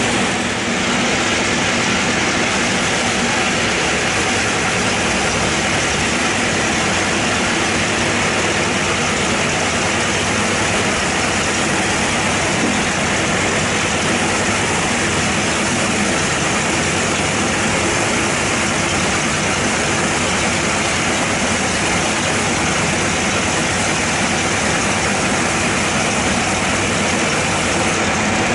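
Sawmill band saw running, its blade cutting lengthwise through a bayur log: a steady, loud, even mix of machine drone and sawing noise that does not let up.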